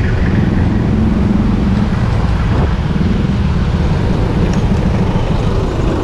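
Steady low rumble of road traffic, picked up from a bicycle by a chest-mounted GoPro's microphone.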